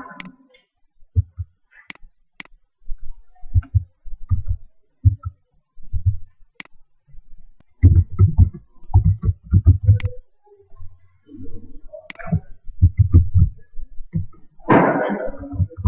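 Typing on a laptop keyboard in irregular bursts, the keystrokes coming through as dull low taps, with a few sharp clicks in between. A short rushing noise comes near the end.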